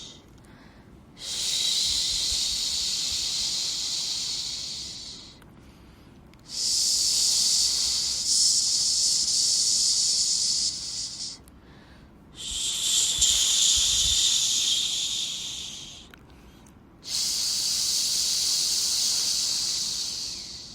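Long high 'shhh' shushing sounds used as white noise to settle a baby, each held about four seconds, with a short pause between them. Four shushes come one after another.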